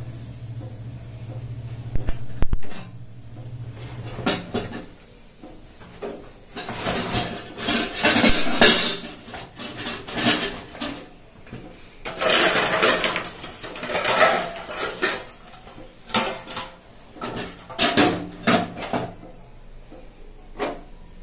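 Steel cookware clanking and clattering: a steel pot, its large steel lid and the serving spoons on it knocked and scraped together as they are handled and lifted away, in repeated spells of clatter with sharp knocks.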